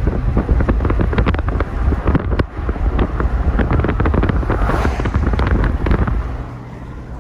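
Car driving along a road, with a low rumble under a dense, irregular run of crackles and pops that eases off about six seconds in.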